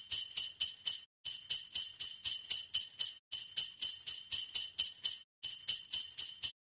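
Jingle bells shaken in a steady rhythm, about four shakes a second, in phrases of about two seconds with short breaks between them. They stop abruptly near the end.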